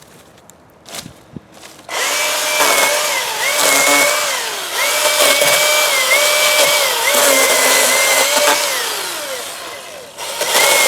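Milwaukee M18 battery chainsaw running at speed, a loud electric motor whine with chain noise that starts about two seconds in after a couple of light clicks; the pitch repeatedly dips and recovers, then briefly drops off near the end and comes back.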